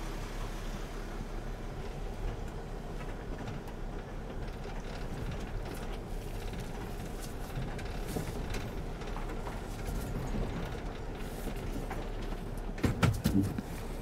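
Mercedes Sprinter's 3.0-litre diesel engine running smoothly as the van drives off, heard from inside the cab. It is no longer misfiring now that the faulty fuel injectors have been replaced. A short cluster of knocks comes about a second before the end.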